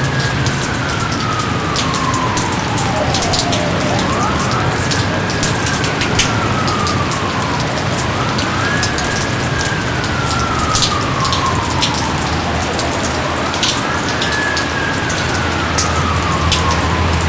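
Heavy steady rain with close drips and splashes. Over it, a wailing tone rises quickly and slides slowly down, over and over, about every four to five seconds.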